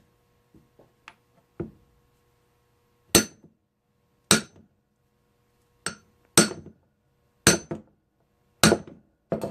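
Hammer striking metal: about seven sharp blows at uneven intervals of roughly a second, each with a brief metallic ring. He is knocking at a seized part of an old air impact wrench to break it loose.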